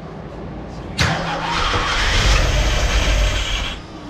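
Freshly installed Ford 302 small-block V8 firing on its first start, primed with a little fuel poured in: it catches suddenly about a second in, runs for just under three seconds, then cuts out abruptly.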